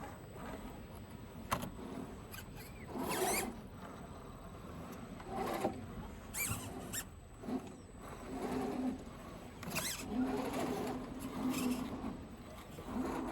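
Electric motor and gears of a radio-controlled scale crawler whining in short throttle bursts, the pitch rising and falling with each blip, about ten times over.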